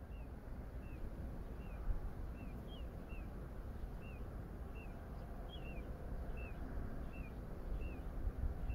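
A bird calling a short, downward-slurred chirp over and over, about once every two-thirds of a second, over a low, unsteady rumble.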